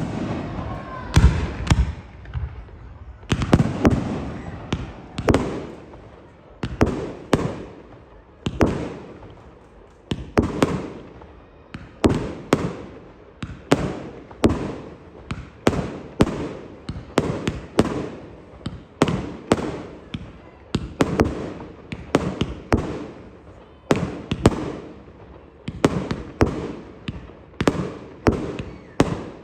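Fireworks bursting in a steady barrage of sharp bangs, about one a second with some in quick pairs, each trailing off in an echo.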